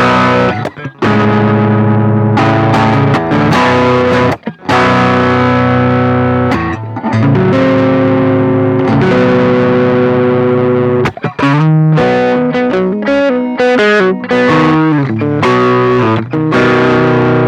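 Electric guitar played through a Ross compressor reissue and overdrive pedals (Tube Screamer, Stone Deaf PDF-2, Fulltone Fat-Boost), giving a distorted, compressed tone. Long ringing chords and notes, with a quicker run of single notes about two-thirds of the way through.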